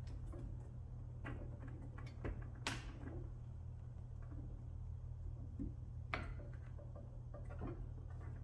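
A handful of light clicks and knocks, the loudest about two and a half seconds in, from a split ring and a sign panel being handled and fitted onto the display, over a steady low hum.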